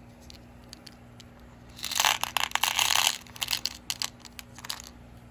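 Strands of gemstone beads and their packaging being handled. About two seconds in there is a dense crinkling and crackling that lasts about a second, followed by scattered light clicks and rustles.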